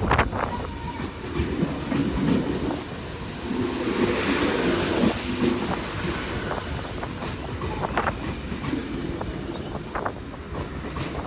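Sydney Trains K-set electric train running through the station, with the steady rumble of the train and sharp clicks of its wheels over rail joints and points, loudest a few seconds in.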